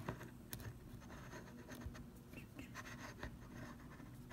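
Faint scratchy rubbing and small scattered ticks as a Fujifilm teleconversion lens is twisted slowly onto the front of a Fujifilm X100F, its threads being turned a little at a time to avoid cross-threading.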